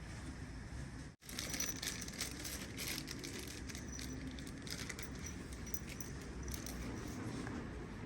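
Faint handling sounds of hands working on engine parts: scattered small clicks and rustling over a steady low hum, with the sound cutting out for a moment about a second in.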